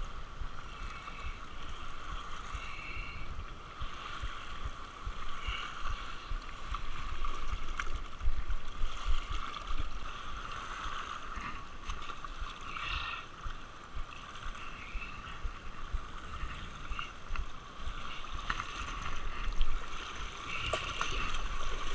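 Small waves lapping and gurgling against a rocky lake shoreline, with wind rumbling on the microphone and a few small splashes.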